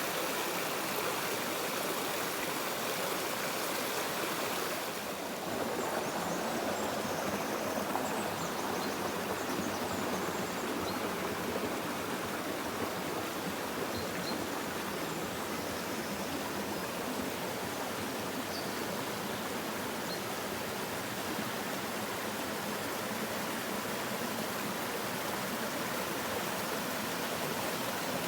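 Stream running steadily, a continuous rush of water with a brief dip in level about five seconds in.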